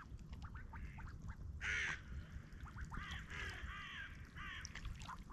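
Ducks on the water calling softly, a run of short quacks in several bunches, over a low steady rumble. A brief hiss comes about a second and a half in.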